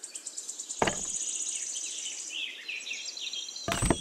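Small birds chirping, with a fast high trill during the first half. Two short dull thumps sound over them, about a second in and again near the end.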